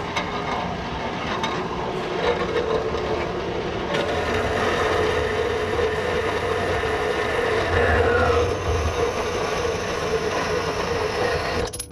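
Harbor Freight metal-cutting bandsaw running and cutting through a piece of metal: a steady motor hum under the rasp of the blade in the cut. It stops suddenly near the end.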